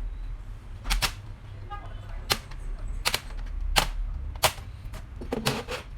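Sharp plastic clicks and snaps, about eight at irregular intervals, as the laptop's plastic bottom cover is pried open and its clips release, over a low steady hum.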